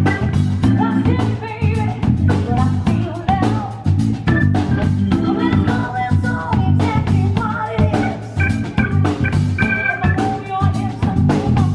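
Live band music: a woman singing over electric guitar, bass guitar and drum kit, with a steady beat.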